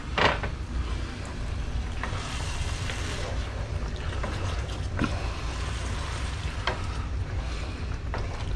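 Red wine sizzling and bubbling in a hot pot of tomato sauce just after being poured in, with a few light clicks against the pot.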